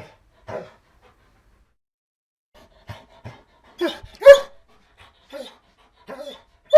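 Dog whining and whimpering as it begs, in short pitched cries. After the first cry there is a pause of about two seconds, then a quick run of whimpers; the loudest cry comes a little past the middle.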